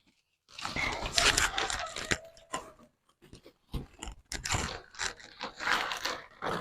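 Crinkling and rustling of bags and packed vegetables being handled and pulled out of a sack, in two spells with a short pause between.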